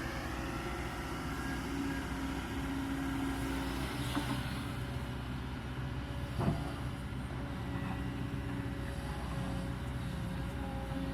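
Kobelco 220 excavator's diesel engine running steadily, with two sharp knocks about four and six and a half seconds in, the second louder.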